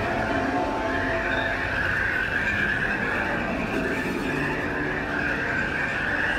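Passenger train running steadily along the track: a continuous rolling noise with a high, wavering hiss from the wheels on the rails.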